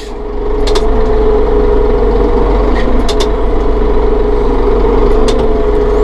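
Massey Ferguson 4610M tractor's diesel engine running steadily, heard from inside the cab, with a constant whine over a low rumble and a few light clicks.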